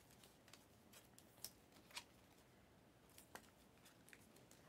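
Near silence with a few faint clicks of Panini Mosaic trading cards being handled, slid one behind another in a stack.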